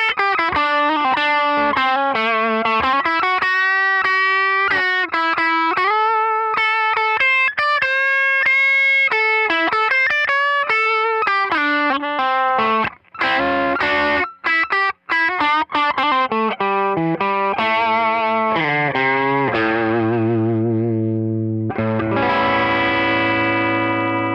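Wayne Custom 2003 electric guitar through a Tone King Imperial Mk II valve amp on its crunch setting, playing single-note lead lines with vibrato and bends. There are a few brief stops, and it ends on a chord left to ring.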